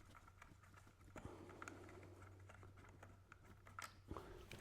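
Faint, scattered small clicks and scrapes of a screwdriver turning out the screw that holds a hardwired smoke alarm's wiring connector, over a faint low hum.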